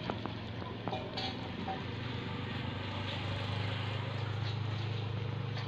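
Pan of small-fish curry cooking on a stove: a steady low hum and hiss, with a few light clicks in the first second.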